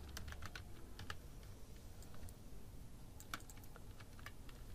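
Faint computer keyboard typing: a quick run of keystrokes in the first second, then another short run about three seconds in.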